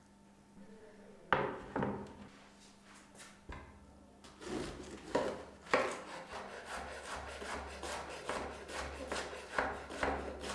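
Kitchen food preparation: two sharp knocks on a wooden surface, then from about halfway in a quick run of rasping, scraping strokes.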